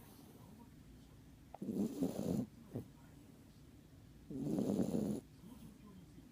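Snoring: two loud snores, the first about a second and a half in with a short snort just after it, the second about four seconds in.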